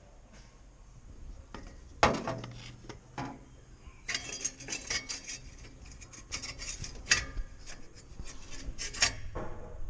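Loose metal heat-shield guard near the exhaust manifold on a Suzuki Vitara, rattling and clinking against the metal around it in irregular bursts: the guard has lost all three of its metal securing bands. The strikes grow thick from about two seconds in.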